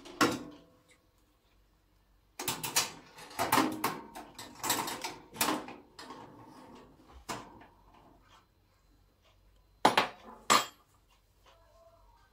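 Metal clatter from a countertop toaster oven: a clank as the door drops open, then a run of scraping and clanking as the wire rack, with the cake pan on it, is pulled out with a metal rack hook. Two sharp metallic clinks follow about ten seconds in.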